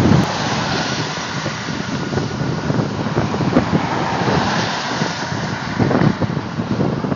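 Wind rushing over the microphone of a bicycle-mounted camera while riding fast, with highway car traffic going by and a swell in the noise about six seconds in.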